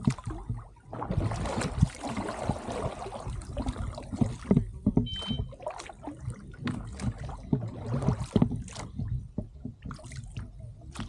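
Oars rowing a duck punt: blades dipping and pulling through the water with splashes and drips, and short knocks of the oars working in their oarlocks.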